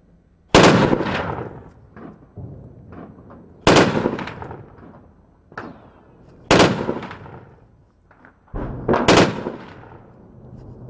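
Four loud single gunshots roughly three seconds apart, each ringing out with a long echoing tail, with fainter distant shots in between.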